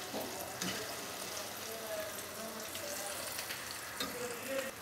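Pakoras deep-frying in hot oil in a kadhai, sizzling steadily, while a perforated slotted spoon stirs and turns them, with a few short scrapes of the spoon near the start and again about four seconds in.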